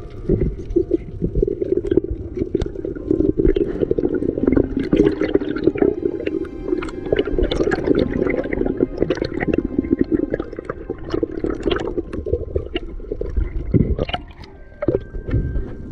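Water sloshing and gurgling around the camera in a steady muffled rush, with many scattered sharp clicks and knocks.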